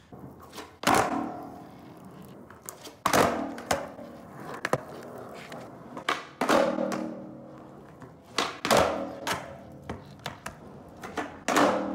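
Skateboard tricks on concrete: sharp clacks of the tail popping and the board landing, a loud one every two to three seconds with smaller knocks between, and the wheels rumbling as the board rolls.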